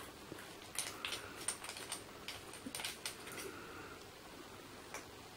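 Light, sharp clicks and taps of the small metal parts of a vape mod being handled, a quick cluster of them from about a second in until about three and a half seconds.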